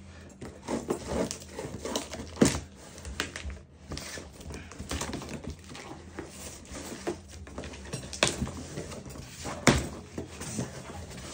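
A cardboard parcel being unpacked by hand: irregular clicks, taps and rustling as the box is opened and the plastic-bagged contents are handled and crinkle, with two sharper knocks, one about two seconds in and one near the end.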